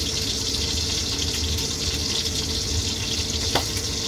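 Steady hissing background noise with a low hum, and a single short click about three and a half seconds in.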